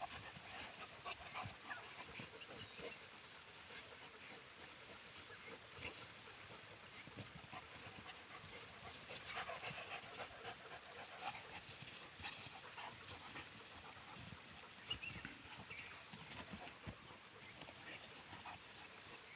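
Bhotiya dogs (Himalayan sheepdogs) play-fighting, with scattered short growls and scuffling that come in irregular bursts.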